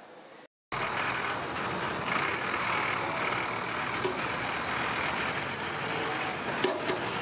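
Steady city road-traffic noise from passing vehicles, starting abruptly under a second in after a moment of quiet room tone. A few sharp clicks come near the end.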